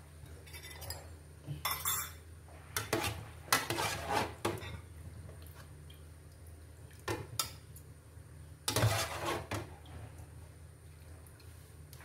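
Dishes and kitchen utensils clinking and clattering in scattered bursts of knocks, loudest a few seconds in and again near the end. A low steady hum runs underneath.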